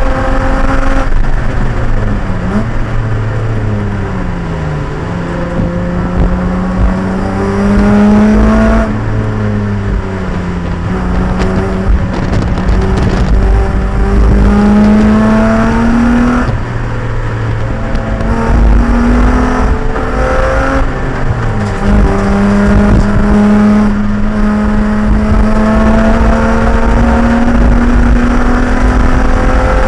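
Racing car engine at full effort on track, its pitch rising for several seconds at a time under acceleration and falling away again, several times, over a steady low rumble of road and wind noise.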